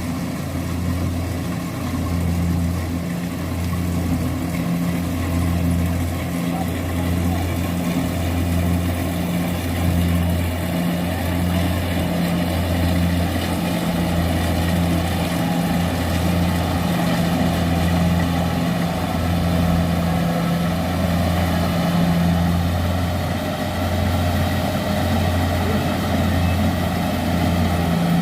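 Kubota rice combine harvester running steadily, with a low engine note that pulses about once a second.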